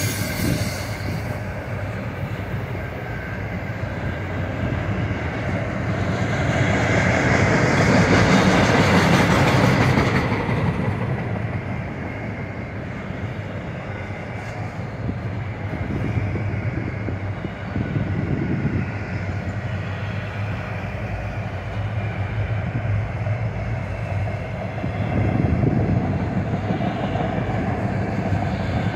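Freight train of autorack cars rolling past: a steady rumble and clatter of steel wheels on the rails, growing louder for a few seconds about a quarter of the way in.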